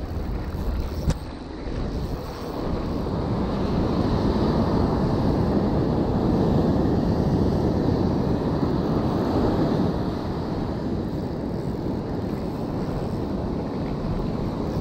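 Surf washing in over the sand with wind buffeting the microphone, growing louder a few seconds in. A single sharp tap sounds about a second in.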